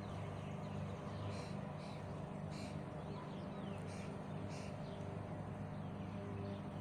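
Outdoor ambience: birds chirping now and then, short high calls scattered through, over a steady low hum.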